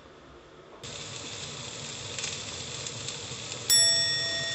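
Meat rolls sizzling in a frying pan, a steady hiss that starts about a second in. Near the end a bright chime rings out suddenly and slowly fades over the sizzle.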